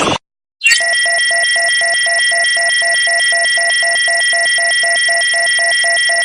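Synthesized sci-fi HUD sound effect: after a brief gap it comes in as a few steady high electronic tones over a lower beep that pulses evenly, about four to five times a second.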